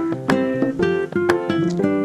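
Background music on a plucked guitar, notes picked a few times a second, each ringing briefly before the next.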